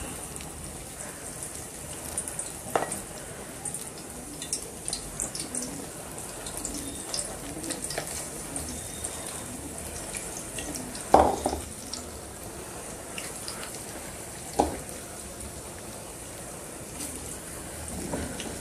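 Battered spinach pakoras deep-frying in medium-hot oil in a kadhai: a steady sizzle with small crackling pops. A few sharp, louder knocks come through, the loudest about eleven seconds in, as more batter clumps go into the oil.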